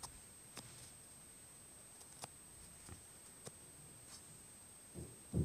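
Faint, scattered small clicks, about five over a few seconds, with two soft low thumps near the end, over a thin steady high-pitched whine: light handling noise.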